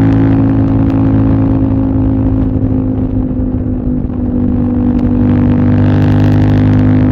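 CFMOTO 800NK's parallel-twin engine pulling at steady revs while riding. The throttle eases off a little near the middle, then the engine comes back on.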